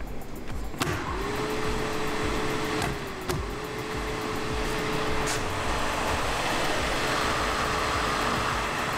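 A rotary switch clicks on about a second in and the circulation fan of an ASONE box-type hot-air drying oven starts: its whine rises quickly as the motor spins up, then holds a steady pitch over a constant rush of air. A few more clicks follow, about three and five seconds in.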